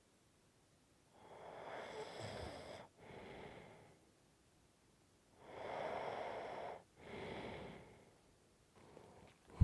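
A person snoring: two breath cycles, each a longer snore of about a second and a half followed straight away by a shorter breath, with silent pauses between. A faint short breath comes near the end.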